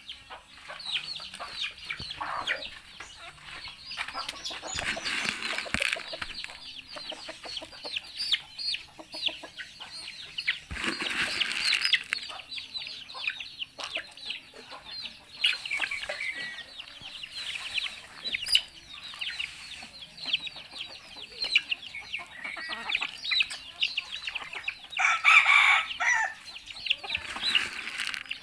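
A small flock of chickens foraging: hens clucking and chicks peeping in a dense, continuous stream of short high chirps. Louder calls stand out three times, the longest about two-thirds of the way through.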